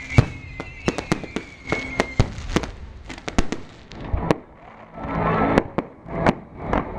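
Fireworks going off in a rapid, irregular string of sharp bangs, with a thin whistling tone during the first two seconds.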